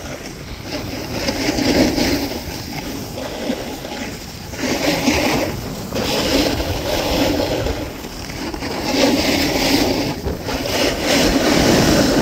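Skis sliding and carving on groomed, hard-packed snow: a scraping hiss that swells with each turn, about every two to three seconds, mixed with wind rushing over the microphone.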